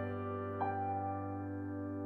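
Background music: soft piano notes, one struck about half a second in and left to ring and fade.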